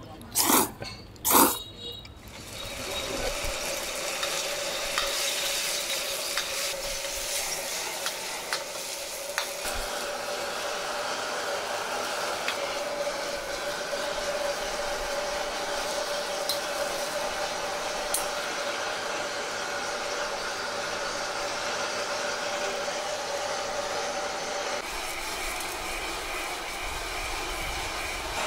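Two loud slurps of noodles, then beef, bean sprouts and vermicelli sizzling as they are stir-fried in an iron wok over a gas flame, with a steady hum running under the sizzle.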